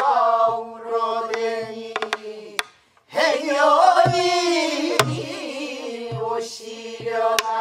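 A group of voices singing a Namdo folk song together, holding long wavering notes, with a soribuk barrel drum keeping the rhythm in stick strokes and low hand thumps. The singing breaks off briefly about three seconds in and comes back in.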